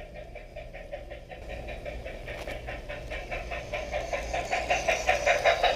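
G-scale model diesel switcher locomotive running on outdoor track with a rapid, even rhythm, growing louder as it approaches.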